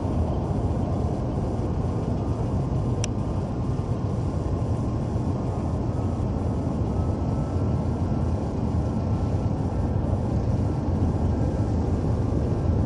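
Four-engine Xian Y-20 turbofan transport on approach with landing gear down: a steady jet rumble, with a faint engine whine rising slightly over the second half.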